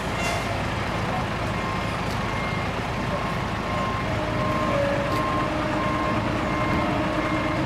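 Heavy machinery engine running steadily, with a vehicle backup alarm beeping repeatedly, a little under two beeps a second. About four seconds in, a steadier lower tone joins the engine sound.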